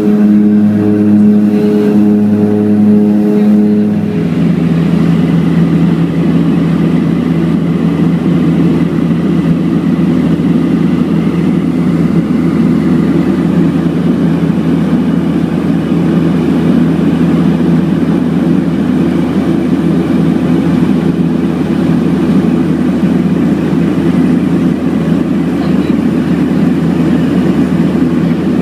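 Cabin noise of a DHC-6 Twin Otter's twin PT6A turboprops and propellers climbing out after take-off: a loud, steady drone with strong propeller tones. About four seconds in the tones change abruptly and settle lower as power is pulled back from take-off to climb, then hold steady.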